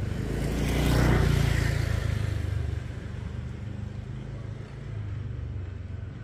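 A motor vehicle passes close by, loudest about a second in and then fading, over a low engine hum.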